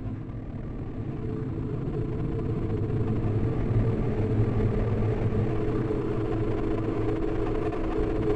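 A low rumbling drone that slowly swells louder, with a steady hum held through the middle and a hiss building above it.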